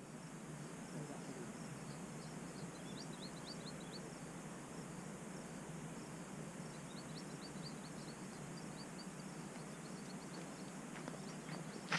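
Faint outdoor field ambience: a steady low hiss with two runs of short, high chirps, a few a second.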